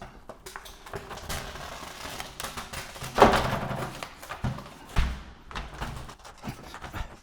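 Scattered taps, clicks and knocks from parts of an LCD TV being handled and pulled apart, with a louder knock about three seconds in and a dull thud about five seconds in.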